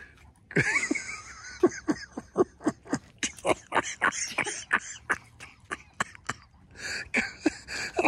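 German shepherd barking in a fast run of short, sharp barks, about four a second, with some high whining near the start and end. The barking is a sign of impatience for the ball to be thrown.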